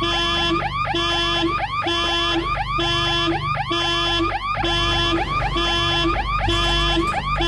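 An electronic alarm tone: a loud pattern of rising-and-falling sweeps over steady beeping tones, repeating about once a second.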